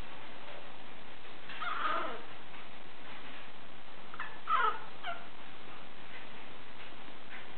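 Young pug puppy whimpering. There is a falling cry about two seconds in, then a quick cluster of high cries around four and a half seconds, the loudest, and a faint one near the end.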